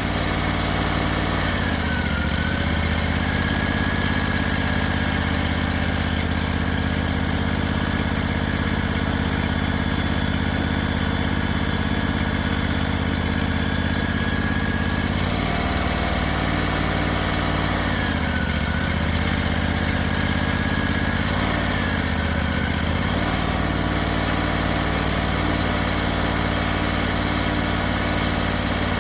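Hydraulic sawmill's engine running steadily, its pitch dipping briefly and recovering about four times: once about two seconds in, and three times in the second half. A thin high whine sits over it for long stretches.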